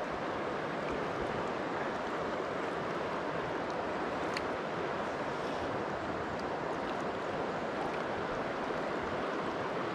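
Steady rush of a trout stream running high, the current flowing fast around the wading angler. One faint click about four seconds in.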